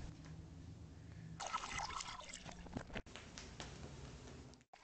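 Faint splashing and trickling water as a face is washed at a bathroom sink. It breaks off abruptly about three seconds in and again near the end.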